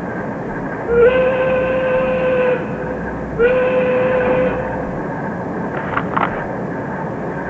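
Two long, steady whistle-like tones: the first lasts about a second and a half, the second about a second. A couple of short clicks follow about six seconds in, over a steady hiss.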